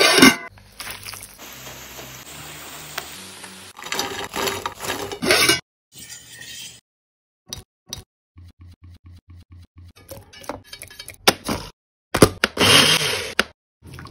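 Close-up kitchen sounds in short separate bits: tomato chunks going into a stainless steel pot with clinks of metal, then soft, wet cooked tomato pieces sliding off a wire strainer onto a plate.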